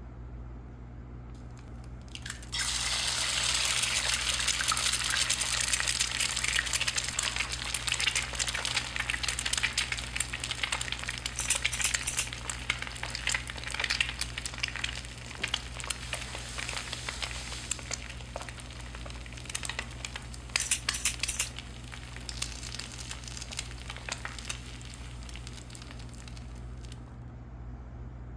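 An egg frying in a pan: steady sizzling and crackling that starts suddenly a couple of seconds in, with two short spells of louder spitting pops, then fades out shortly before the end.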